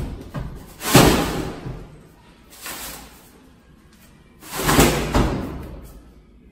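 Heavy plastic bag of slime dropping into a plastic wheelie bin, then the bin's plastic lid banging shut. There are loud knocks about a second in and again around five seconds, with a smaller one in between.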